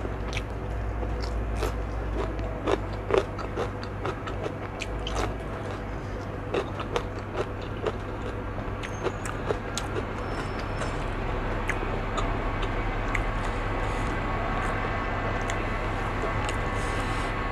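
Close-miked crunchy bites and chewing of a raw cucumber slice, with sharp crunches coming thickest in the first ten seconds. A steady hum with a few fixed tones rises in the background from about eleven seconds in.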